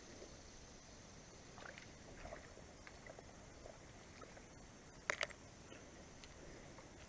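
Faint creek-side ambience of moving water with scattered small ticks and splashes. About five seconds in come two quick, sharp clicks, the loudest sound.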